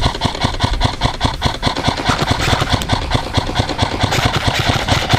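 Airsoft rifle firing on full auto: a long, unbroken rattle of rapid shots, about ten or more a second, held through the whole stretch.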